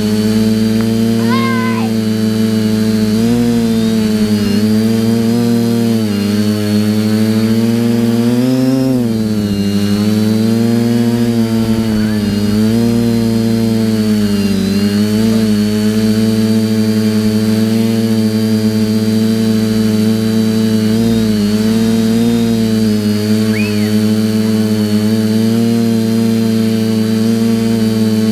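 TBS Discovery quadcopter's electric motors and propellers buzzing loud and close. The pitch wavers constantly as the throttle shifts, with a deeper dip and swell around nine seconds in.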